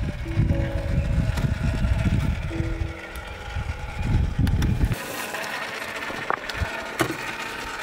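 Traxxas TRX-4 Bronco RC crawler working over rocks: a low motor and drivetrain rumble that stops about five seconds in, followed by a few sharp clicks of tyres and stones.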